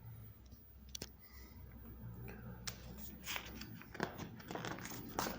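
Paper pages of a book being handled and turned, with a few sharp clicks and then a run of crackling and rustling in the second half, over a low steady room hum.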